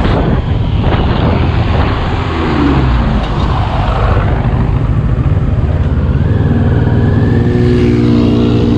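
CFMoto NK400's parallel-twin engine running steadily under way, mixed with heavy wind rush on the microphone; the engine note rises near the end.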